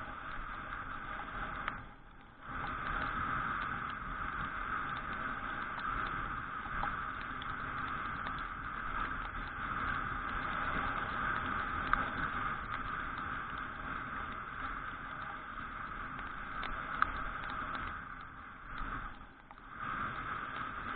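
Suzuki Address V125G scooter on the move on a wet road: its single-cylinder four-stroke engine running under steady wind and tyre noise. The sound drops away briefly twice, about two seconds in and again near the end.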